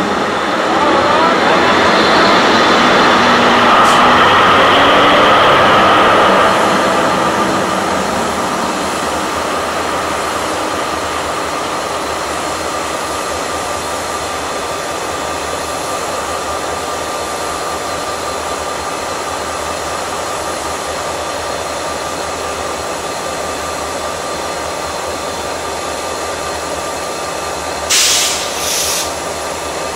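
SCT diesel-electric locomotive CSR003, running light engine, passes close by with its engine running. The sound peaks over the first six seconds and then fades to a steady diesel hum. Near the end come two short noisy bursts.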